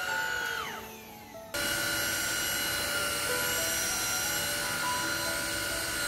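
Boaar Force D14 cordless stick vacuum's motor whine falling in pitch and dying away as it is switched off. About a second and a half in, the vacuum starts again abruptly and runs steadily at full suction. Light background music plays underneath.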